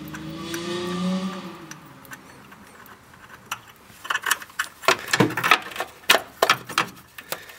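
Light metallic clicks and clinks of a socket and extension against the grounding-wire bracket and its bolt, coming in a quick irregular run from about four seconds in. A low wavering tone sounds in the first two seconds.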